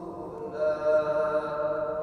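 Background music of soft, held tones, with a new sustained note swelling in about half a second in.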